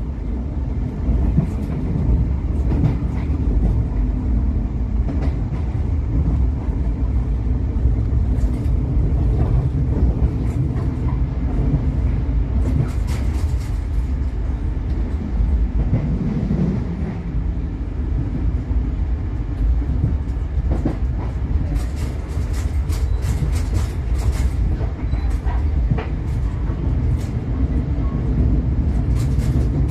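Passenger train running, heard from inside the carriage: a steady low rumble, with clusters of sharp clicks and knocks about halfway through and again near the end.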